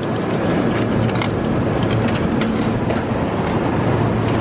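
Coins fed one by one into a vending machine's coin slot, several short clicks as they drop in, over a steady loud din of station noise with a low hum.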